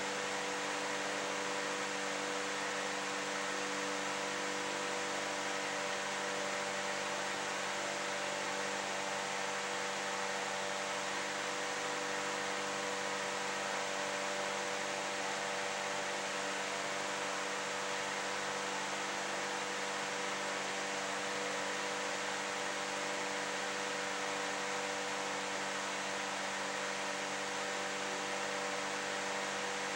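Steady hiss with a low electrical hum of several fixed tones, unchanging throughout: the recording's own noise floor in a quiet room.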